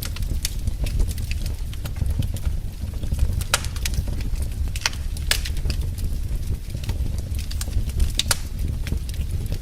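Fire in a fireplace crackling, with irregular sharp pops over a steady low rumble.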